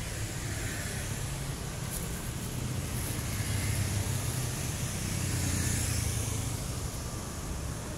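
Motor vehicle engines running close by on a city street: a steady low rumble over traffic noise, swelling a little around the middle.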